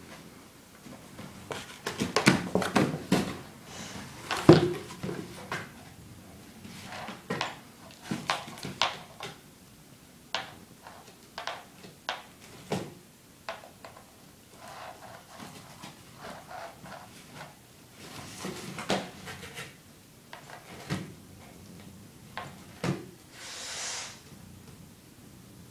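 Rhodesian Ridgeback puppy chewing and tearing at a cardboard box: irregular crackling, crunching and ripping of cardboard, busiest a few seconds in, then scattered crunches.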